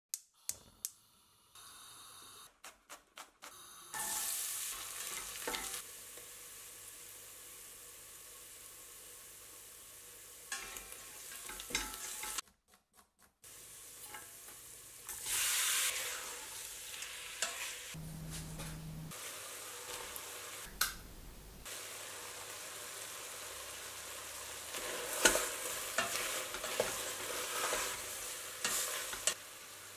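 Onions and then beef and vegetables sizzling in hot oil in a stainless steel stockpot. A silicone spatula stirs and scrapes, knocking against the pot, with the knocks busiest near the end. The sizzling comes in several short stretches that break off abruptly.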